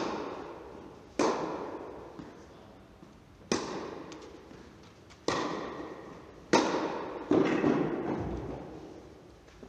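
Tennis ball struck by rackets in a baseline rally: five sharp hits about one to two seconds apart, the last two close together. Each hit is followed by a long echo in the large indoor tennis hall.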